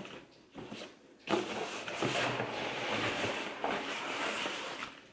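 Cardboard and packing paper rustling and scraping as a hand rummages inside a FedEx cardboard shipping box and pulls out its contents. After a short quiet start it is a steady rustle lasting about three and a half seconds.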